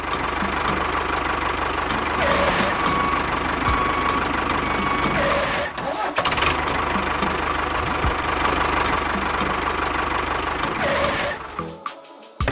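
A small motor running steadily, dropping out briefly about six seconds in and stopping near the end.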